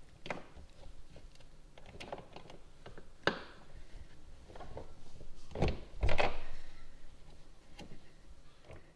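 Irregular small clicks and knocks of a hand tool and fastener as a mud flap's mounting screw is tightened against the truck's wheel well, with a couple of louder knocks about six seconds in.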